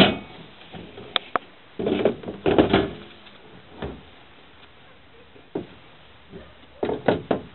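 Irregular knocks and clunks of metal meter-socket boxes being handled and shifted in a pickup truck bed: single sharp knocks and short rattling clusters, about a second or two apart.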